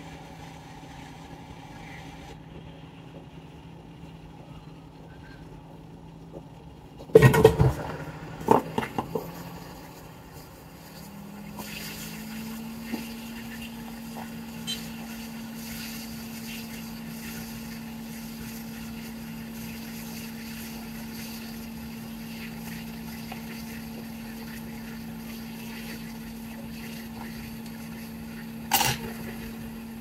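A few loud knocks about seven seconds in, then from about eleven seconds a hot-air rework station blowing steadily, a fan hum with airflow hiss, as it reflows the solder under a replacement regulator IC on a laptop motherboard. A sharp click near the end.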